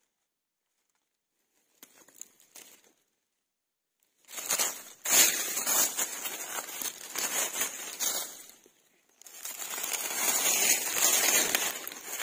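Dry fallen leaves crunching and crackling as they are disturbed in the leaf litter. Faint crackles come first, then dense crunching starts about four seconds in, breaks off briefly about three-quarters of the way through, and resumes.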